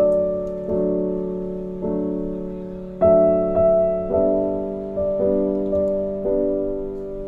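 Soft piano background music: slow held chords that fade away, a new chord struck every second or so.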